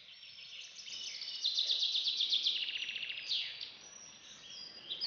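Songbirds singing: high chirping phrases with a fast trill through the middle, then a quick falling note and more chirps near the end.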